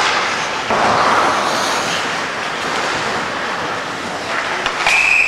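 Ice hockey play in a rink: skates scraping the ice and sharp knocks of sticks and puck. Near the end, a referee's whistle begins one long, steady blast that stops play.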